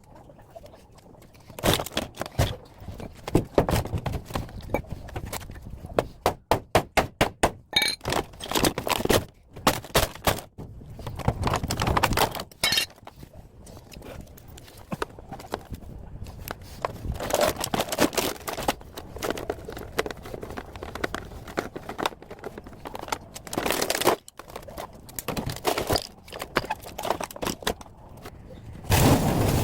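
Plastic and metal parts of a top-loading washing machine being broken apart: repeated knocks, cracks and crunches, with a quick run of even strikes, about five a second, around the seventh second.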